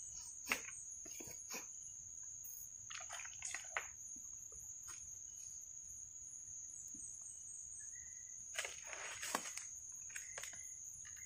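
Steady high-pitched drone of an insect in the forest, with a few soft rustles and taps from handling gear, the loudest a little after halfway through.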